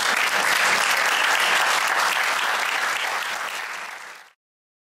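Audience applauding, a dense patter of many hands clapping, which cuts off suddenly just after four seconds in.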